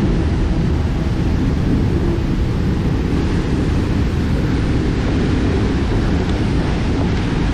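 Strong wind blowing on the microphone: a loud, steady noise, heaviest in the low end.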